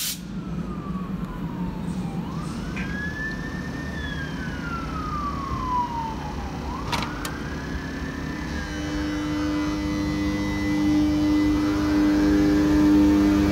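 ČD class 362 electric locomotive pulling away: whines from its electrical equipment glide up and down several times over a low hum, with a single clank about seven seconds in. A steady hum grows louder from about nine seconds as the locomotive rolls past.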